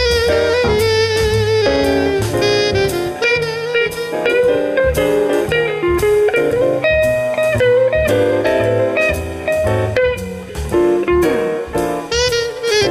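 Saxophone playing a jazz melody over an instrumental accompaniment with a moving bass line.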